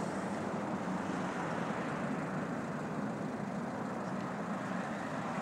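Boeing 777-300ER's GE90 jet engines heard from beside the runway as the airliner touches down and rolls out, a steady even rush of noise with a faint low hum.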